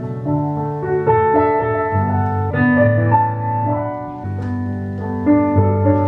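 Slow ballet-class piano accompaniment for an adage exercise: held chords and a legato melody.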